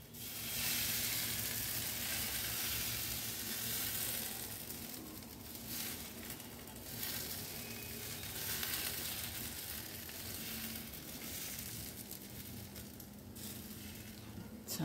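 Thin flour, egg and milk batter dripping through a perforated steel strainer onto a hot frying pan, sizzling steadily with swells every second or two.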